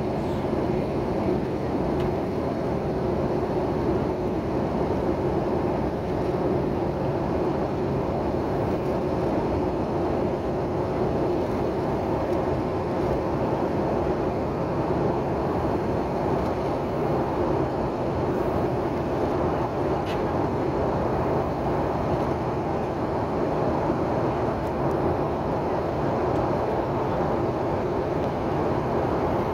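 Steady cabin noise of a jet airliner in flight, heard inside the passenger cabin: engine and airflow noise as an even rush with a low steady hum.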